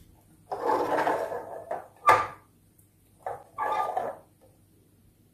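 Plastic wheels of a toy carriage rolling and scraping over a tabletop as it is pushed along, in two passes of about a second and half a second, with a sharp click between them.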